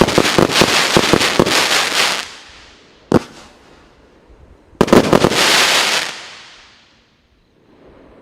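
A consumer fireworks battery firing: a fast string of bangs and crackles stops about two seconds in. A single sharp bang follows about a second later, then one last loud burst of crackling starts suddenly near the middle and fades away.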